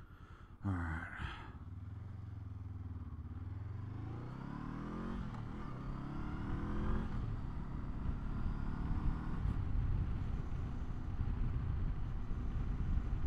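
Honda SCL500's parallel-twin engine idling, then opening up sharply about a second in. The motorcycle pulls away with its pitch climbing through two upshifts, then runs steadily.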